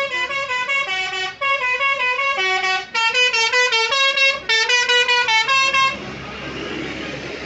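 A bus's telolet horn, a set of musical air horns, plays a quick tune of short notes stepping up and down in pitch. It breaks off about six seconds in, leaving a steady rushing noise.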